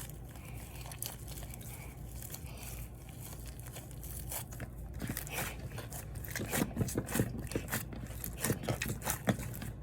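Soft clay slime being mixed and kneaded by hand, giving quick sticky crackles and small pops that grow denser and louder about halfway through.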